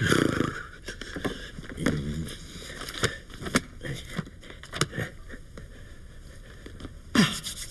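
Scattered short clicks and scrapes from cartoon sound effects. The loudest come at the start and near the end.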